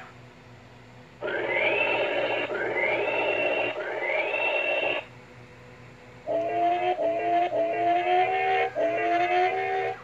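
Toy robot's built-in speaker playing electronic sound effects: three rising synth whoops one after another, then, after a short gap, a bouncy run of short repeated electronic notes.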